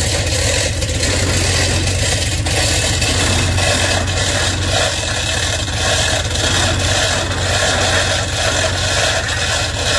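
An engine running steadily at idle, a constant low, evenly pulsing drone.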